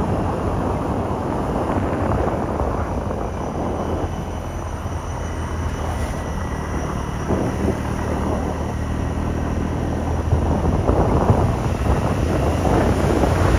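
Wind rushing over the microphone of a moving motor scooter, with a vehicle engine running underneath; it grows louder in the last few seconds.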